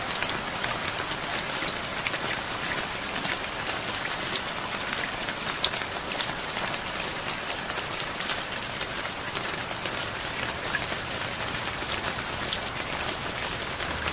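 Steady rain, a dense patter of drops hitting a surface.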